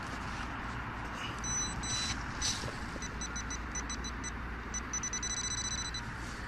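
Handheld metal-detecting pinpointer beeping as it is probed in a dug hole. A few separate high-pitched beeps begin about a second and a half in, then quicken into rapid runs of pulses for the middle few seconds, the signal that metal is close to the probe tip.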